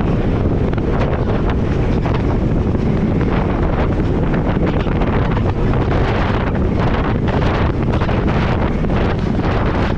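Heavy wind buffeting the microphone: a loud, steady low rumble broken by many short knocks.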